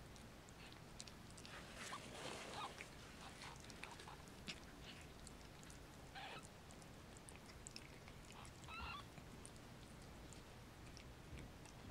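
Faint wet clicks and rustling of a Snowshoe Siamese mother cat licking and tending her newborn kittens as they nurse, with one short squeak from a newborn kitten about three-quarters of the way in.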